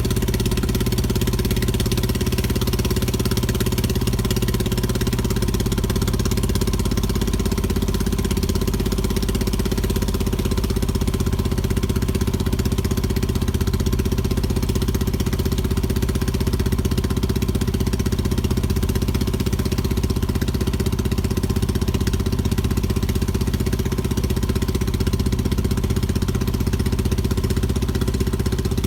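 Fishing boat's engine running steadily, its note shifting slightly about nine seconds in.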